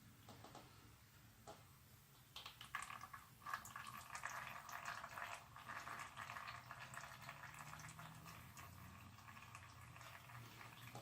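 Faint trickle and patter of engine oil draining from the mower engine's oil filter mount into a drain pan, starting about two seconds in.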